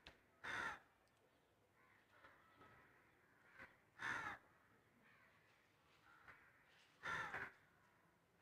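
A crow cawing three times, a few seconds apart, each caw short and harsh.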